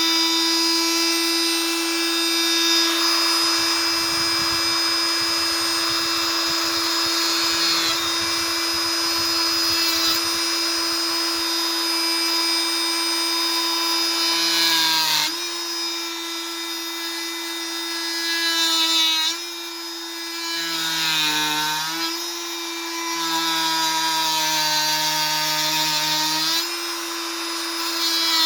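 Fein MultiMaster 500 cordless oscillating multi-tool running on a Bosch battery, a steady high buzzing whine. Its pitch dips briefly a few times in the second half.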